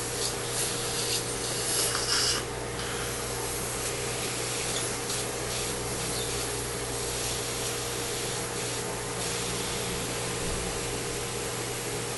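Steady hiss of dental surgical equipment with a faint electrical hum under it, broken by louder hissing and scraping bursts in the first couple of seconds and again around the middle.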